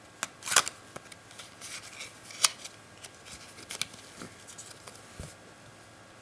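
A deck of red-backed paper playing cards being handled: spread, gathered and squared in the hands, with crisp card snaps and rustling clicks. Two sharp snaps stand out, about half a second in and again about two and a half seconds in, and there is a soft low thump near the end.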